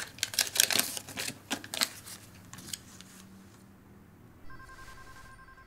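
A quick run of light clicks and taps for about two seconds, then, about four and a half seconds in, a steady electronic tone of two notes together starts.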